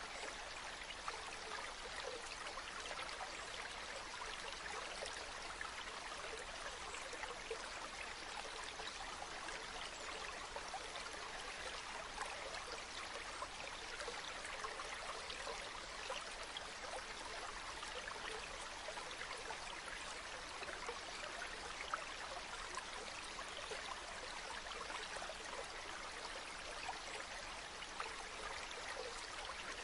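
Shallow stream flowing steadily, water trickling and babbling over stones.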